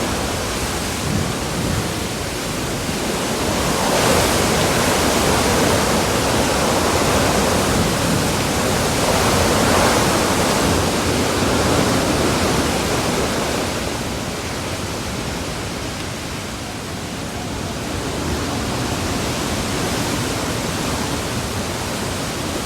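Hurricane-force wind and rain, a dense, unbroken rush that swells and eases in gusts: strongest in the first half, dropping a little past the middle, then building again near the end.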